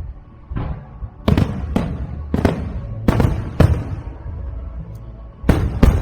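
Aerial firework shells bursting, about eight sharp bangs coming in an irregular run, each with a short decaying tail.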